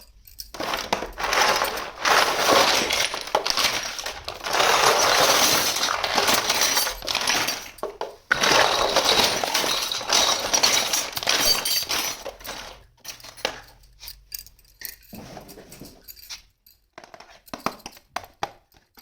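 Plastic packaging being crinkled and torn open in dense crackling spells, then sparser clicks and clinks of small hard plastic toy pieces being handled.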